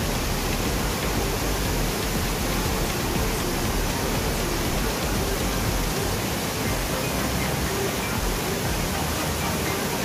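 Steady rush of a rocky mountain stream tumbling over small waterfalls, a constant even roar of water.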